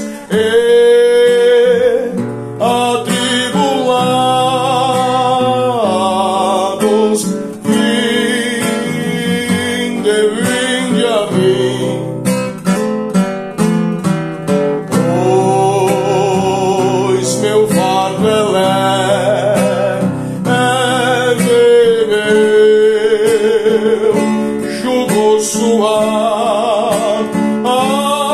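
A man singing a hymn melody with vibrato, accompanied by acoustic guitar.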